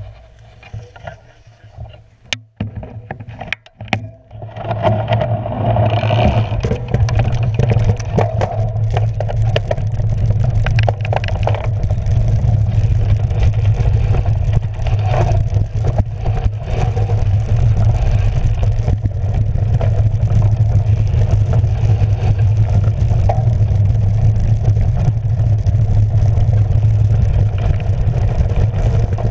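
Cyclocross bike riding over a rough, leaf-covered forest track, heard through a handlebar-mounted camera: steady rumble and rattle of tyres and frame vibration with wind on the microphone. A few quiet seconds with some sharp clicks come first; the rumble starts about four seconds in and keeps up.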